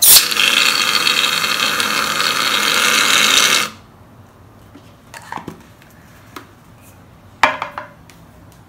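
Aerosol can of shaving foam spraying into a stainless steel mixing bowl: a loud, steady hiss for about three and a half seconds that cuts off suddenly. A couple of short, faint knocks follow.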